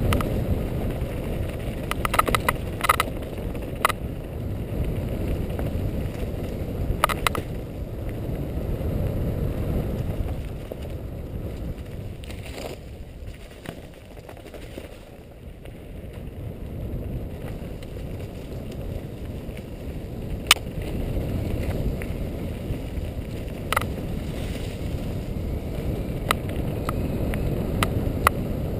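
Mountain bike rolling fast down a rough dirt trail: a steady low rumble of tyres and wind on the helmet microphone, with sharp clicks and rattles from the bike over bumps. The rumble eases off for a few seconds about midway.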